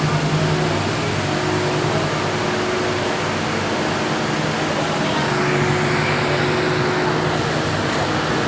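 Steady machinery drone with a low hum, as in a boiler room where a gas-fired steam boiler plant is installed.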